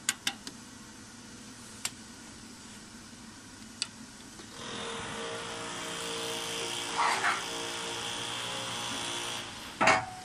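A few sharp knocks of metal parts being handled, then a milling machine runs with a steady whine from about four and a half seconds in, louder for a moment partway through, and stops with a loud clank near the end.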